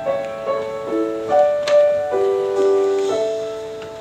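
Solo piano playing a gentle introduction: single notes and chords struck one after another, ending a little after three seconds in on a held chord that slowly fades.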